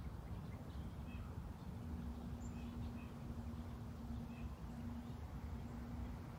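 Quiet outdoor ambience: a low steady rumble with a few faint, scattered bird chirps, and a faint steady hum that starts about two seconds in.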